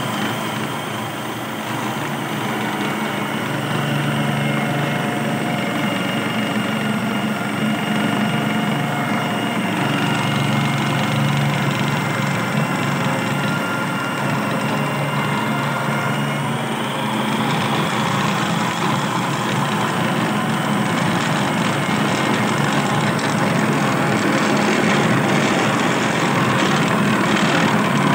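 Braun food processor motor running with its plastic dough blade turning through flour and water, kneading roti dough. It is a steady hum with a whine that rises in pitch a little past halfway and grows slightly louder towards the end as the dough comes together.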